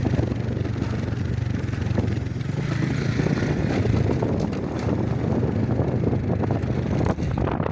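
Steady low drone of a vehicle's engine running while riding along a rough dirt road, with road noise.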